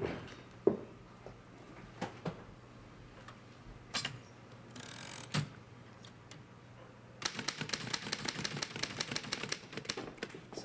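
Manual typewriter being typed on fast: after a few separate knocks, rapid keystrokes start about seven seconds in and go on, many a second.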